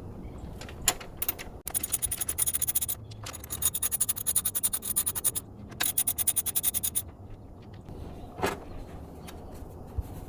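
Ratchet wrench with a 10 mm socket clicking rapidly in three runs as bolts are unscrewed, with a few single knocks of the tool.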